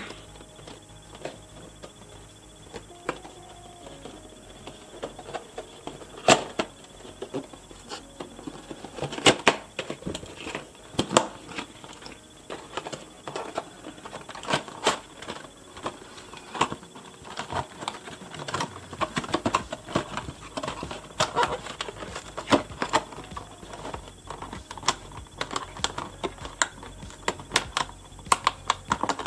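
Irregular clicks, taps and rustles of cardboard and plastic packaging being handled as a fashion doll is worked out of its box.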